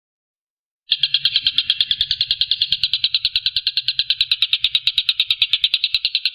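Tengkek buto kingfisher calling in a fast, harsh rattling trill of about ten notes a second. It starts abruptly about a second in and runs on without a break.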